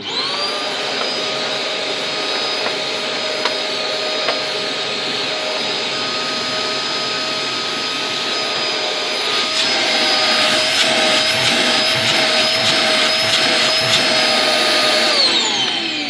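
Hoover Turbo Power vacuum cleaner switched on at full speed, its motor running with a steady whine over rushing air. It gets louder about ten seconds in, with scattered clicks and rattles. Near the end it is switched off and the whine falls as the motor winds down. The owner says the machine still sounds terrible.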